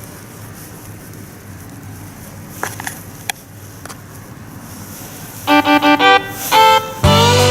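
Faint hiss with a few light clicks, then background music with sustained instrument notes starts about five and a half seconds in and grows louder near the end.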